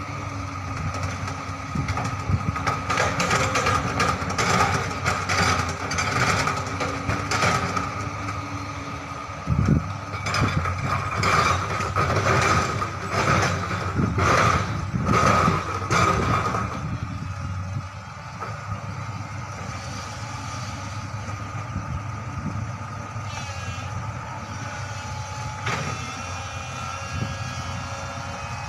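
Hydraulic excavator's diesel engine running under load with a steady hydraulic whine while it loads soil into a dump truck, with clattering knocks and one heavy thump about ten seconds in. After about seventeen seconds the engine settles to a quieter steady run.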